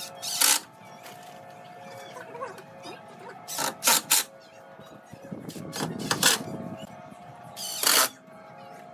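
Cordless drill driving screws into a wooden bench frame in short bursts, a few seconds apart, with three in quick succession about four seconds in.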